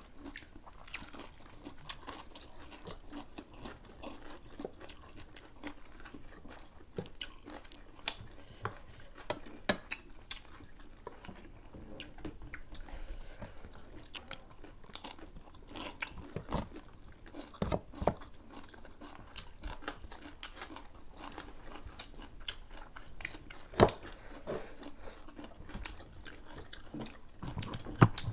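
People eating by hand at a table: close chewing and crunching of food, with many small clicks and smacks throughout. A few sharper, louder knocks in the second half.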